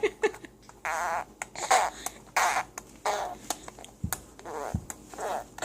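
A baby blowing raspberries: a rapid string of short, spluttering lip buzzes, a dozen or so, some lasting about half a second.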